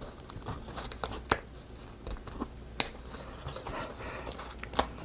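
Painted wooden marble-run pieces being handled and fitted together: light rustling with a few sharp wooden clicks and taps.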